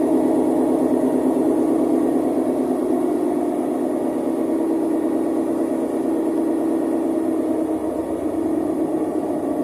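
Electrolux Professional W365H washer-extractor in its spin cycle: a loud, steady hum with a rapid fine vibration running through it, easing slightly near the end. The spin is badly unbalanced, and the owner puts the noise down to bad drum bearings.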